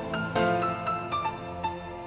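Music: a keyboard melody of held notes, with new notes coming in every half second or so.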